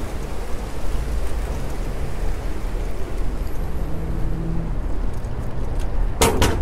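Wind buffeting a bike-mounted GoPro's microphone, with road rumble, while cycling. Two sharp knocks close together near the end.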